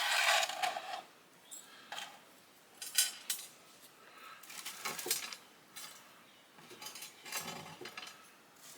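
Small pieces of salvaged scrap metal being handled and set down, with scattered light clinks and knocks.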